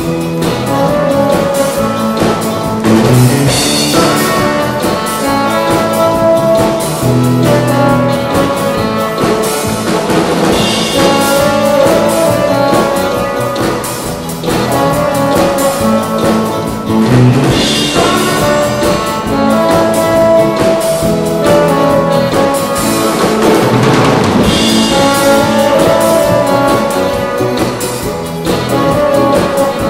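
Saxophone playing a melody in long held notes over a band accompaniment with a drum beat.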